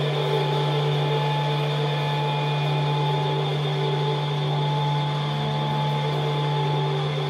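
Experimental drone music: a steady low hum with fainter held tones above it and a layer of hiss.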